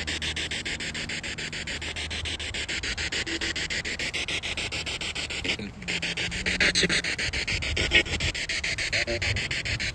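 Ghost-hunting spirit box sweeping through radio frequencies: a steady hiss of static chopped into rapid, even pulses, with brief scraps of broadcast sound flickering through, most around the middle and near the end.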